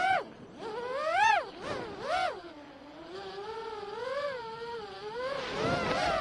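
A motorcycle engine revving, its pitch rising and falling with the throttle: two quick sharp rises and falls about one and two seconds in, then a wavering, held pitch.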